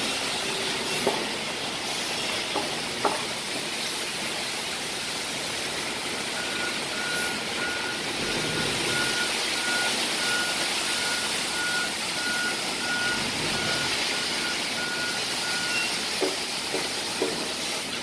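Concrete mixer truck running during a pour, a steady rushing noise. From about six seconds in to about sixteen, a truck's reversing alarm beeps at an even pace.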